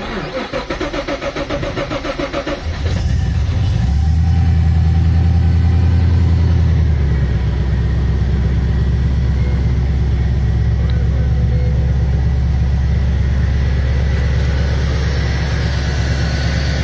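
Cold start of a stock GM LS1 5.7-litre V8 fitted with individual throttle bodies, with no throttle. The starter cranks for about three seconds before the engine catches. It runs louder for a few seconds, then settles into a steady idle about seven seconds in.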